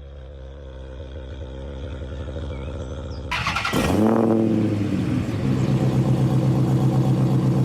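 A person imitating a car engine with their voice: a low hum, then a sudden louder rev about three seconds in that drops in pitch and settles into a steady, pulsing idle.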